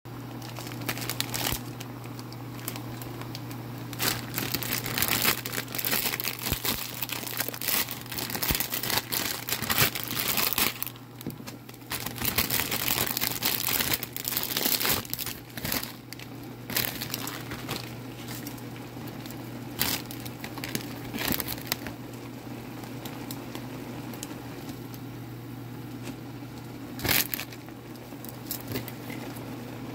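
Plastic instant-noodle packet crinkling and tearing as it is handled and opened, in dense bursts through the first half and in scattered bursts later. Under it run water boiling in the pan and a steady low hum.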